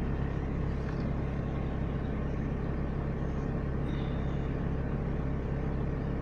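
Steady low hum of a running motor under a faint, even hiss.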